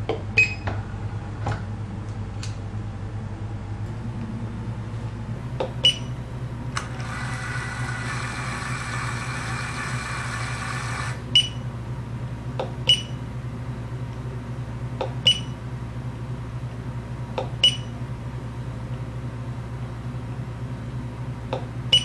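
The feed unit motor of an IML-RESI PD-Series drill whirs for about four seconds as it drives the feed unit back to its rear end position. Short sharp click-beeps from the control knob's button presses come about seven times, over a steady low hum.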